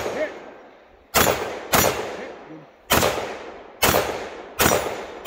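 Semi-automatic pistol fired five times. The first two shots come about half a second apart, the rest just under a second apart. Each report trails off over about a second.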